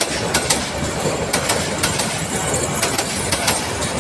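Bangladesh Railway intercity passenger coaches running past close by, a steady rumble of wheels on rail with repeated sharp clicks as the wheels cross the rail joints.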